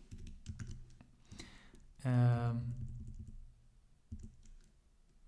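Typing on a computer keyboard: scattered keystroke clicks, sparser and fainter in the second half. About two seconds in, a drawn-out voiced hesitation sound ('uhm') lasts about a second.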